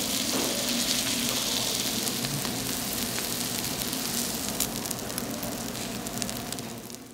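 Beef intestines sizzling and crackling steadily on a hot grill pan, fading out near the end.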